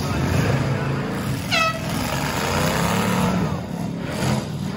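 Several V8 demolition derby car engines running and revving as the cars push against each other, with a brief high squeal about one and a half seconds in.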